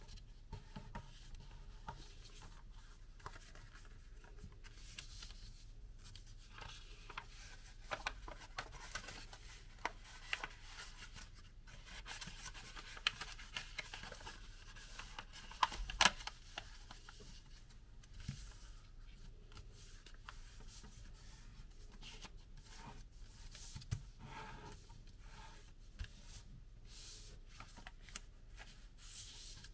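A sheet of origami paper rustling and crinkling quietly as hands fold and crease it, with a few sharper crackles about halfway through.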